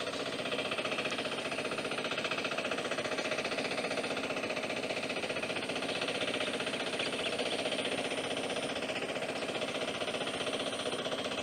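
Hand tractor engine running steadily off to one side, with a fast, even beat.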